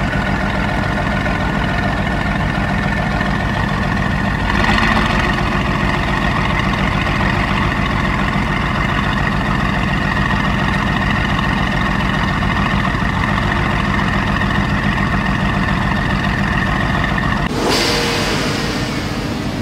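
Mercedes-AMG GT S's twin-turbo V8 idling steadily through an aftermarket Per4mance exhaust, the note swelling briefly about four seconds in.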